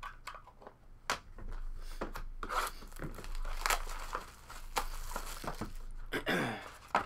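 Plastic shrink-wrap being torn off a sealed trading-card box and crumpled: a run of crackling and tearing with sharp clicks, and a louder tear about six seconds in.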